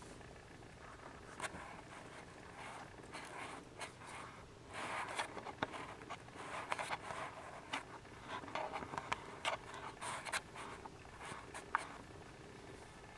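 Faint, irregular scratchy rustling and small clicks from a litter of Siamese kittens jostling and kneading against their nursing mother on a blanket, busier about five seconds in.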